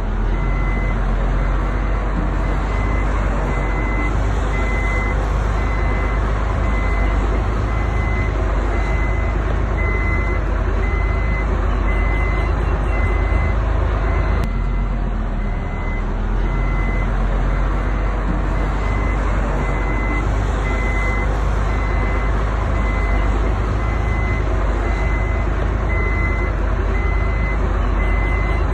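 Heavy diesel construction machinery running steadily under load, with a reversing alarm beeping about once a second.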